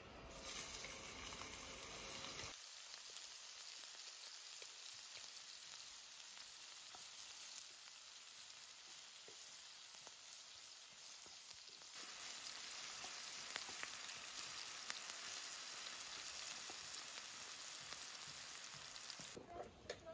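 Chopped onion frying in hot oil in a shallow metal pan: a steady sizzling hiss with fine crackles.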